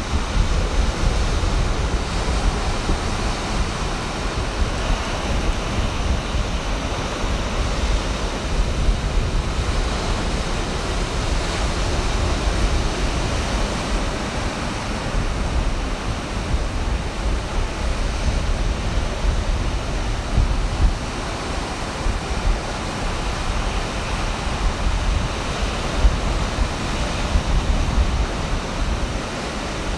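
Ocean surf breaking and washing up the beach in a steady rushing wash, with wind rumbling on the microphone.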